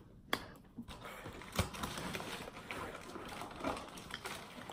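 Scattered sharp taps with soft rustling between them, from hands striking and brushing each other and against clothing during signing.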